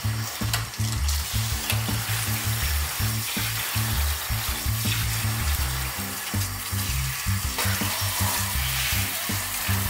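Handheld shower head spraying water onto a small dog's wet coat and a stainless-steel grate, a steady hiss, over background music with a steady beat.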